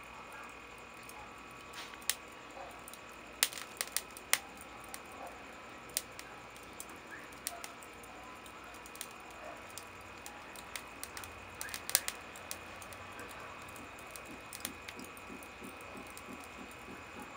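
Wood kindling burning on lump charcoal in a grill, crackling with irregular sharp pops, several in a cluster about 3 to 4 seconds in and another cluster near 12 seconds.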